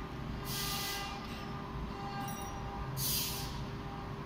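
Steady hum of workshop machinery holding a few fixed tones, with two short bursts of hiss, about half a second in and again about three seconds in.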